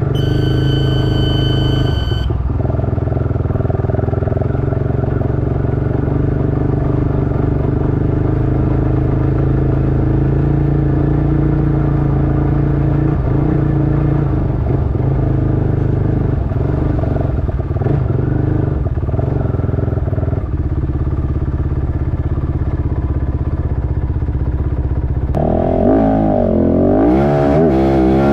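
Rally motorcycle engine running steadily at speed on a dirt track, with a high electronic beep for the first two seconds. Near the end the engine pitch rises and falls repeatedly as the revs change.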